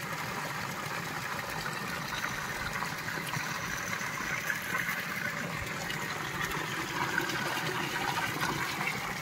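Hot spring water pouring from a spout and splashing into a rock pool below, a steady rushing splash throughout.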